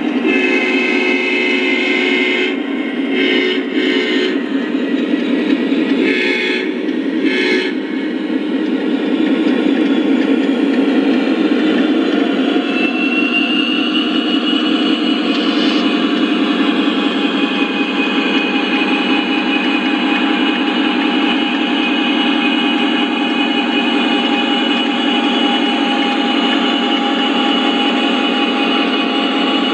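Lionel O scale Grand Trunk Western SD40 model diesel locomotives running with their onboard sound: several blasts of the horn in the first eight seconds or so, then a steady diesel engine rumble mixed with the running noise of the train on the track. A higher whine rises about twelve seconds in and then holds.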